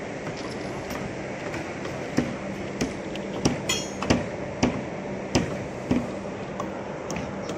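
Hammer blows on slab formwork: about nine sharp, irregularly spaced knocks between about two and six seconds in, over a steady low hum.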